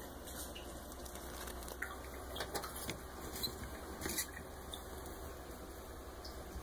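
Light scattered clicks, taps and short squeaks of a 3D-printed plastic combat robot being handled and turned by hand on a tabletop, over a faint low hum.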